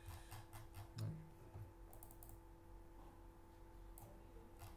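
A few faint, scattered clicks from operating a computer while scrolling through a document, over a steady low hum.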